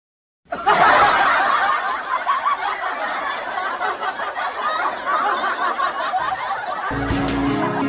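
Laughter sound effect, starting suddenly after a moment of dead silence and running for about six seconds; guitar music comes in near the end.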